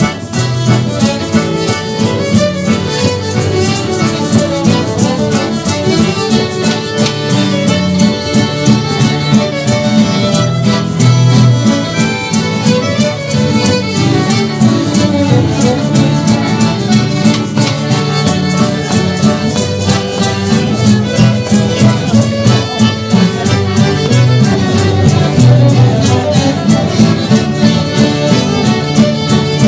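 Live folk music: a fiddle playing a tune over guitar accompaniment, with a steady beat.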